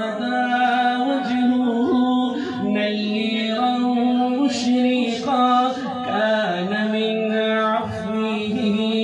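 Naat singing: a man's voice carrying a wordless melodic line over a steady held drone.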